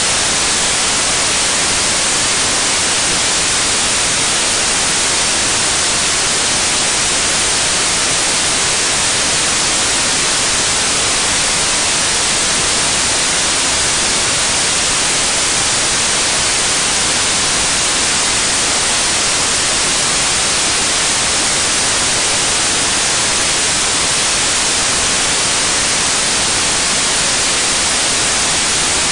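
Steady, loud hiss like static or white noise, unchanging throughout, with no engine rhythm or separate knocks standing out.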